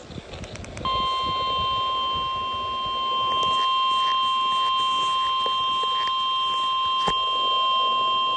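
NOAA Weather Radio's 1050 Hz warning alarm tone: one long, steady, piercing beep that starts about a second in. Over the radio it comes with a light hiss. It is the alert tone that announces a warning, here a severe thunderstorm warning.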